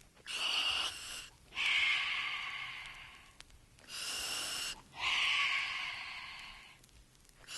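A man taking deep, noisy breaths in and out of a gas from a bottle, four airy rushes of about one to two seconds each. It is a gas in which sound travels faster than in air, so breathing it makes the voice go up.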